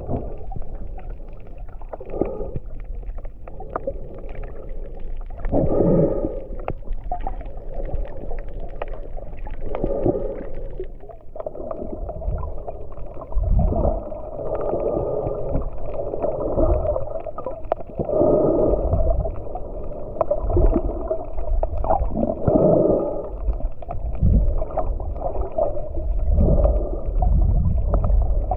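A diver breathing underwater: muffled bursts of gurgling exhaled bubbles about every four seconds, over a steady low rumble.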